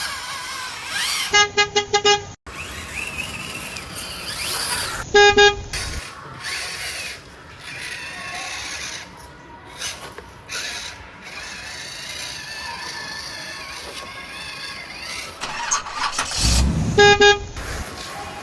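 Car horn honks: a quick run of about five short beeps about a second and a half in, another brief honk around five seconds, and a last one near the end, each on one steady pitch. A steady whirring bed runs between them.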